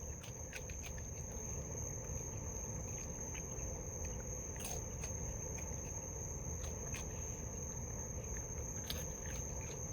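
Steady high-pitched chirring of crickets, with a few faint clicks scattered through.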